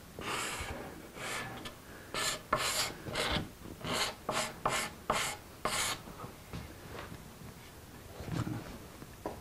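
Card scraper drawn along a wooden door stile in a quick run of short scraping strokes, taking wafer-thin shavings to clear burn marks from the veneer. The strokes stop for the last few seconds.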